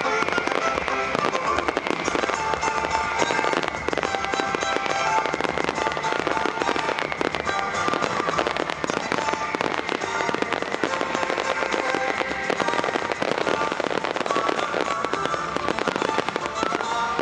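Fireworks bursting and crackling densely and without a break, over loud music playing alongside the display.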